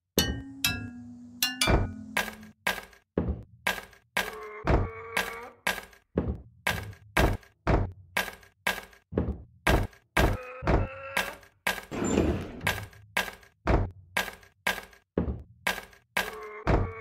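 A fast, even rhythm of sharp knocks and thuds, about three a second, with short ringing tones sounding over some of the hits, like a beat built from sampled everyday impact sounds.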